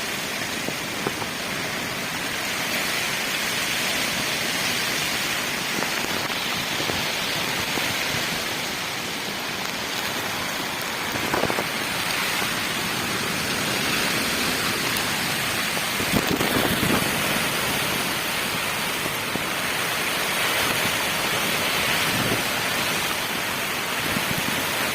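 Heavy rain pouring steadily in strong wind, a dense even hiss with a few brief louder surges.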